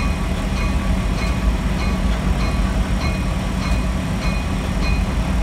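Locomotive running steadily with a low drone as the train rolls slowly along the track, heard from inside the cab, with a faint tick repeating about every 0.7 s.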